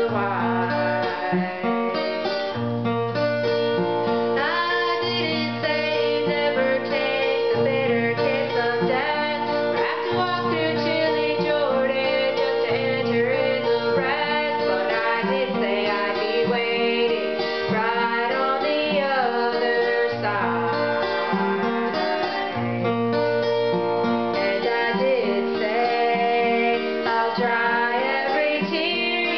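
Acoustic guitar played as accompaniment to a woman singing a song.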